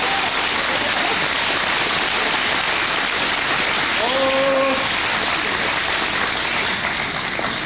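Steady crowd noise filling a sports hall, with one voice calling out briefly about four seconds in.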